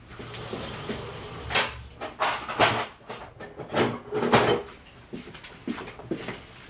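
Handling noises: a string of knocks, clicks and scrapes as objects are picked up and moved about. The loudest clusters come about one and a half, two and a half and four seconds in.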